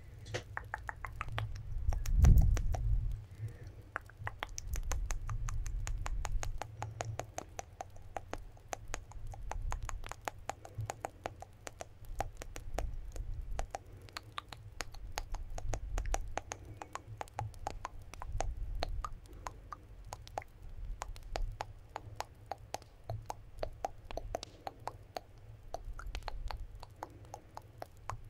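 Close-miked ASMR mouth sounds: a dense run of small wet clicks and smacks, several a second, over a low rumble that is loudest about two seconds in.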